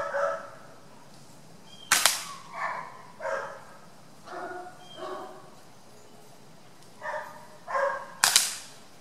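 Two spring-piston air rifle shots about six seconds apart, each a sharp report followed a split second later by the pellet smacking into a wooden cable-spool target. Short animal calls repeat in between.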